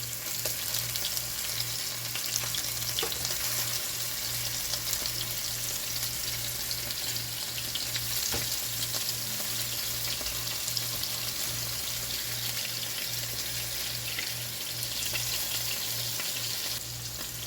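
Homemade ground-chicken patties sizzling in a frying pan: a steady crackling sizzle with scattered small pops, over a low hum.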